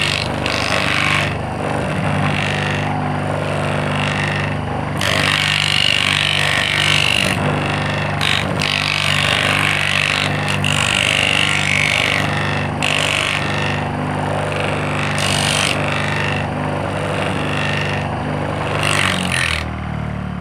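Small electric motor (dinamo) running as a sander, a steady hum with bursts of high scraping noise coming and going as the abrasive meets the work. Near the end the hum drops in pitch as the motor starts to wind down.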